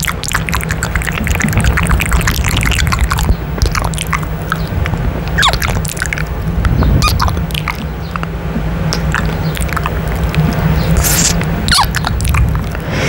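Kisses and wet lip smacks right against a condenser microphone's grille: a quick run of clicks at the start, then scattered smacks, over a steady low rumble.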